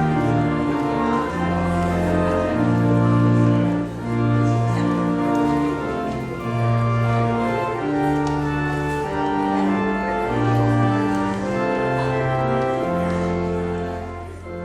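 Church organ playing the closing postlude: held chords changing over a moving bass line, fading out near the end.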